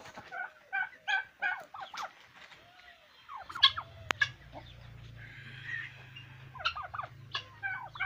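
Chickens and turkeys calling in a poultry pen: a string of short, repeated calls, about three a second at first, then further bunches of calls. A low steady hum comes in about three and a half seconds in, with one sharp click soon after.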